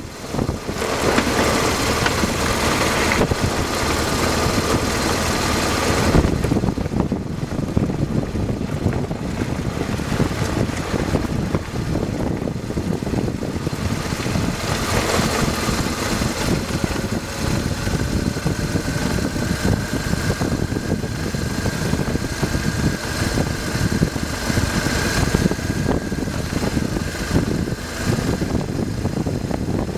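Motorcycle engine running at low speed on a rough dirt track, with frequent irregular knocks and rattles from the bumps.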